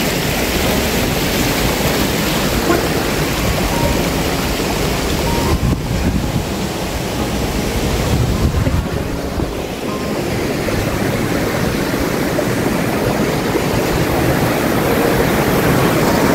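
Fast-flowing mountain stream rushing over rocks: a loud, steady rush of water, with wind rumbling on the microphone.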